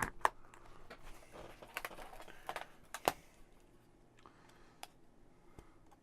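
Scattered light clicks and taps, with some soft rustling: thin laser-cut MDF kit pieces being handled on a tabletop.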